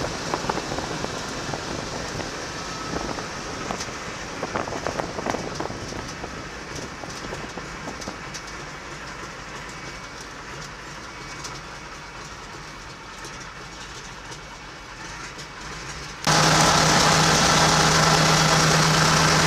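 Wind rushing over an exterior, wing-mounted camera together with the rumble and rattle of a Norseman bush plane rolling along the runway after landing, with many small clicks, slowly fading as the plane slows. About three-quarters of the way in, a louder steady hiss with a low hum cuts in suddenly.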